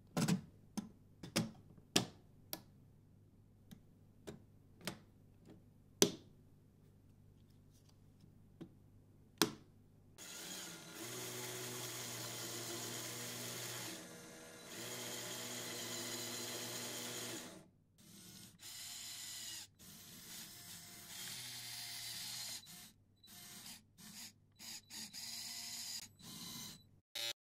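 Sharp clicks and taps of Lego plastic parts being handled. About ten seconds in, the small electric motors and plastic gears of a Lego Technic all-wheel drive and steering car start to whine steadily. In the second half they run in short stop-start bursts as the car is driven and steered by remote control.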